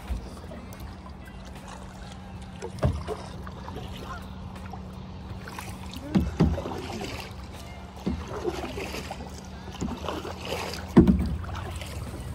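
Kayak paddles dipping and pulling through the water as two people paddle a tandem kayak, with water moving along the hull. Several dull thumps break in, the loudest near the end.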